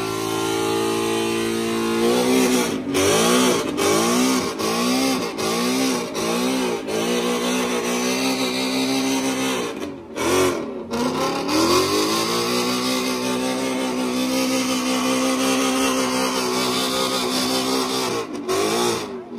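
Car engine revving hard during a burnout. The revs rise and fall in quick pulses, a bit more than once a second, then hold high and steady for several seconds, and pulse again near the end.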